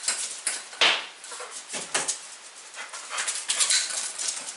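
A Brittany dog scrambling across a concrete floor after a thrown toy, with irregular scrapes, scuffs and clatters, the loudest a sharp knock about a second in.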